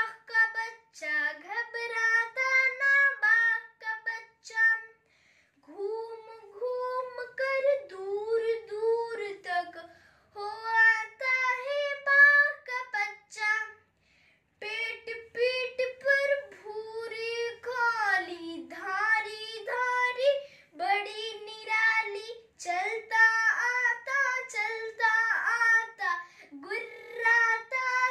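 A young boy reciting a Hindi poem in a high, sing-song chant, line after line with short pauses between phrases.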